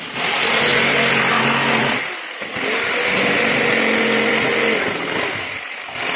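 Handheld electric jigsaw cutting through an MDF sheet, its motor and blade running steadily with two short breaks, about two seconds in and near the end.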